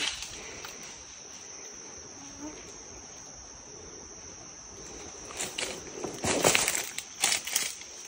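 Steady high-pitched buzzing of forest insects, with a few loud crackles and rustles in the second half.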